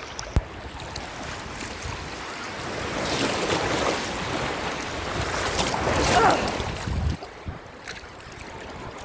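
Ocean surf: a wave rushes in, swelling to its loudest about six seconds in and falling away abruptly a second later, with wind buffeting the microphone. A single sharp knock near the start.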